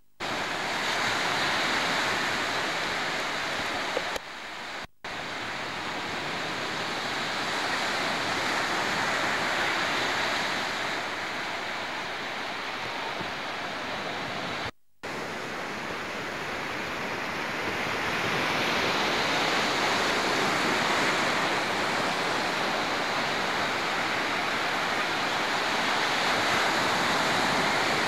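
Gulf of Mexico surf washing onto the beach, a steady rush of breaking waves that starts abruptly and cuts out briefly twice, about five and fifteen seconds in.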